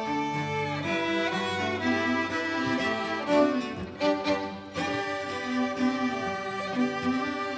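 Small string ensemble of violins and a cello playing a piece together, with sustained bowed notes moving from chord to chord.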